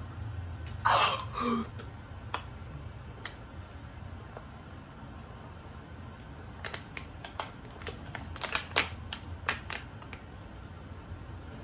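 Thin plastic water bottle crackling in sharp separate clicks as it is squeezed and dented during gulping, mostly in the second half. About a second in there is a short voice-like sound that falls in pitch.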